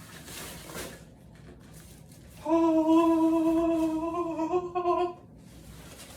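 A man's voice holding one long sung note for about three seconds, starting about two and a half seconds in and stepping slightly up in pitch near the end, like a dramatic fanfare; quiet handling before it.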